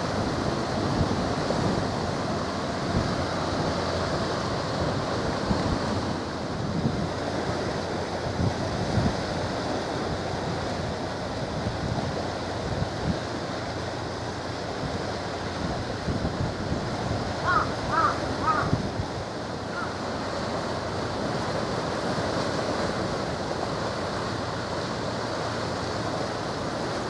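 Wind gusting across the microphone, with waves washing on a choppy sea.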